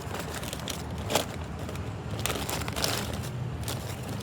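Food wrappers and paper rubbish rustling and crumpling as they are stuffed into a bag, with a few sharp crinkles, over a steady low background hum.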